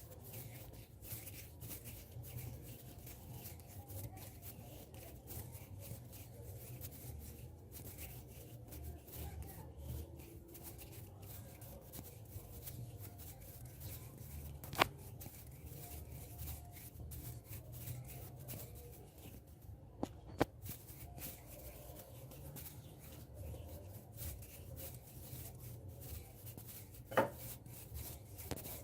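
Hands rubbing and brushing together close to an ASMR microphone, a continuous soft crackling rustle, with a few sharper clicks, one about halfway through, two close together a little later and one near the end.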